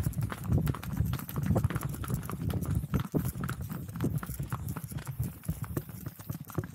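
Hooves of two ridden Hokkaido ponies clip-clopping on a dirt road, many overlapping hoofbeats with a steady low rumble beneath them.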